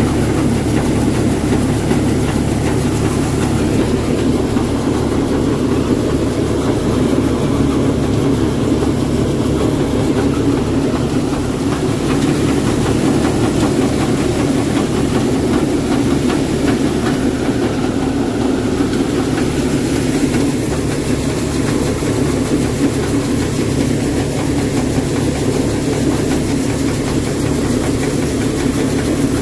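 Tractor-driven Star 'Tokri Model' deluxe wheat thresher running steadily under load while threshing: the tractor's diesel engine and the thresher's drum, belt pulley and fan make a continuous, even mechanical din.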